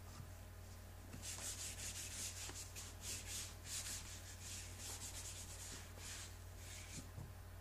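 Scrub pad rubbing Firestone QuickPrime Plus primer onto an EPDM rubber membrane: a run of quick back-and-forth scrubbing swishes, about two or three strokes a second, starting about a second in and thinning out near the end.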